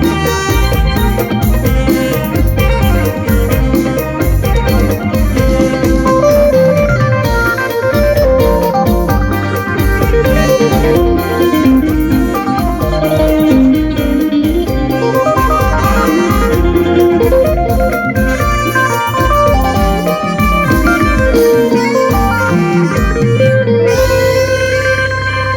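Mor lam sing band playing an instrumental passage, an electric phin (Isan lute) picking the lead over a steady drum beat. Near the end the beat drops out and held tones remain.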